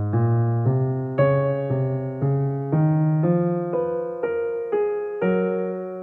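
Background music on an electric piano: a slow run of sustained notes, a new note about twice a second.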